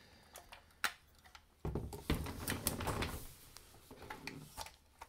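Clicks and knocks of a heavy diecast scale-model mining excavator being handled and turned over by hand. About one and a half seconds in comes a louder stretch of knocking and rubbing as it is set upright on the table, dying away near the end.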